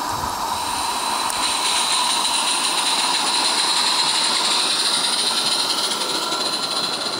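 Garden-scale model trains running on the track: a steady hiss that swells in the middle and eases toward the end.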